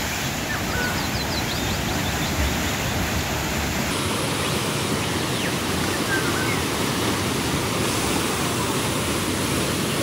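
A waterfall's whitewater pouring over rocks into a turbulent pool, a steady rushing of water.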